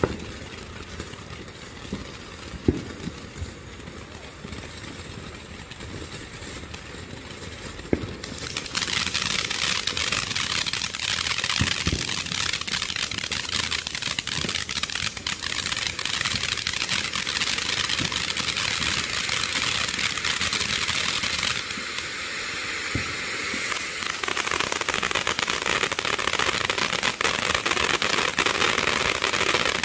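Ground fountain firework spraying sparks: a hiss with scattered sharp pops at first, then about eight seconds in it surges to a loud, dense hissing crackle. It eases briefly a little past the middle and then builds again.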